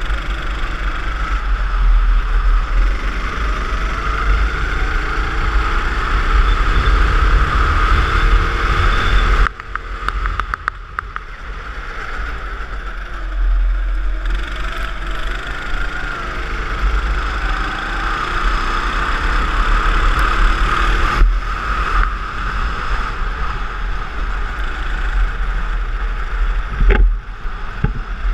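Go-kart engine running hard on track, its pitch rising and falling as the kart accelerates and slows through the corners, with heavy wind buffeting on the onboard microphone. The sound drops sharply about ten seconds in.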